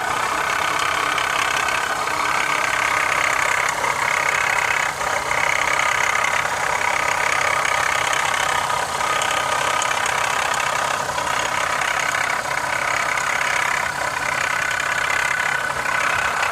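2015 Honda CR-V engine running steadily with a rattle, the noise whose cause the owner is trying to find.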